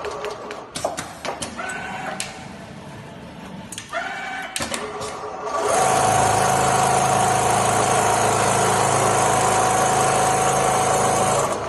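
Richpeace automatic template sewing machine: in the first half it is quieter, with clicks and two short rising whines, then from about six seconds in it sews steadily with a constant mechanical hum and tone until it stops shortly before the end.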